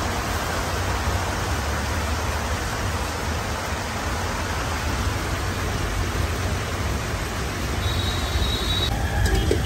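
Steady hiss with a low rumble: street-stall background noise, with no clear separate strokes.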